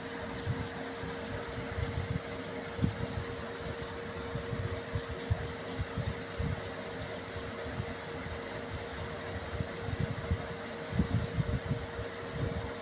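Steady mechanical hum of a running room appliance with one constant tone, over soft, irregular low bumps.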